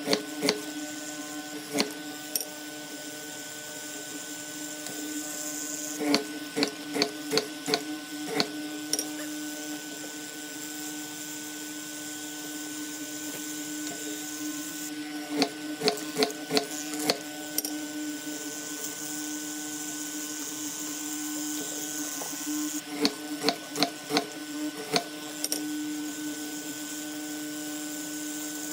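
Rapid knocks in four bursts of about five to eight strikes each, a few seconds apart, over a steady hum.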